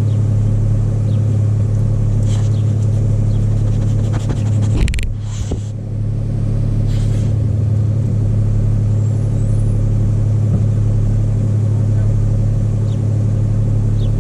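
Car engine idling with a steady low hum. A brief rustling knock about five seconds in.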